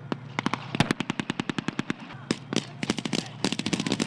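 Rapid bursts of automatic small-arms fire, machine guns firing blank rounds in a simulated battle, at about eight to ten shots a second with a short break about two seconds in. A steady low engine hum runs underneath.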